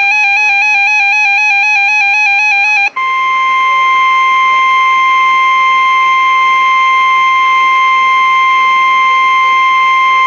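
Weather radio alert tones: a buzzy electronic warble quickly stepping between two close pitches for about three seconds, then, after a brief break, a steady loud 1050 Hz NOAA Weather Radio warning alarm tone, the signal that a warning broadcast follows.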